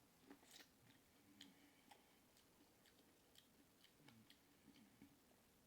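Faint chewing and lip-smacking: soft, irregular mouth clicks and wet smacks from someone eating seafood.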